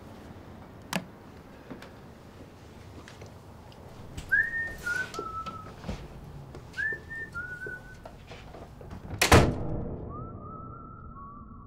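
A sharp click, then two short whistle-like calls, each dropping in pitch in two steps, and about nine seconds in a loud thunk like a door slamming shut. A long whistle-like tone sets in near the end.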